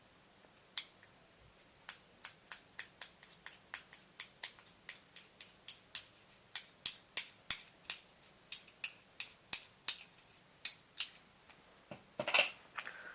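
Small pentalobe screwdriver working the screws of an iPhone, making a run of small sharp clicks at about three a second, followed by a brief, louder clatter near the end.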